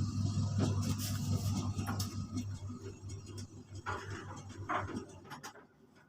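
Samsung washing machine running, with a steady low motor hum and rattling clicks as the drum turns. The hum fades away over the second half, with a couple of brief knocks near the end. The machine is shaking and noisy because it does not stand level on its four legs.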